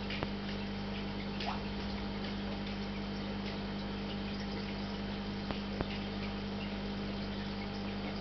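Kittens suckling at their mother cat, with small wet clicks and smacks a few times over a steady low hum.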